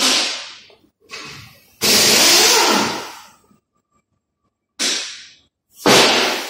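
Five short blasts of compressed air, each starting sharply and tailing off, the longest about a second and a half near the middle.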